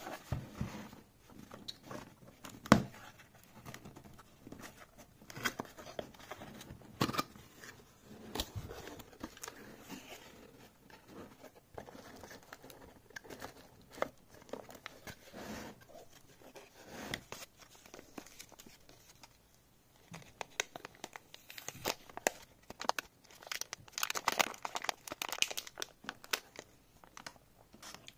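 Cardboard box being opened and unpacked by hand: handling and tearing of the cardboard and tape, with one sharp knock about three seconds in. Near the end comes a long stretch of crinkling as the circuit board is drawn out of its metallic anti-static bag.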